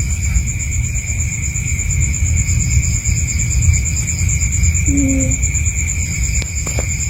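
A sleeping cat snoring: a low, rough rumble, with a short nasal note about five seconds in.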